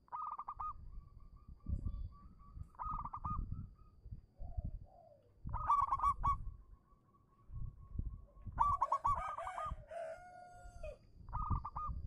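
Zebra dove (perkutut) cooing: five bouts of its rolling coo, each a quick run of staccato notes at a steady mid pitch, coming every two to three seconds. A low rumbling noise runs between the bouts.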